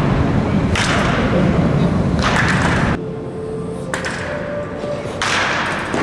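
Batting practice in an echoing indoor hall: a bat strikes balls about four times, each hit sudden and followed by a long reverberant tail.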